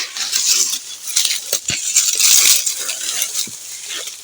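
Dry maize leaves, husks and stalks rustling and crackling with a few sharp cracks as maize cobs are picked by hand.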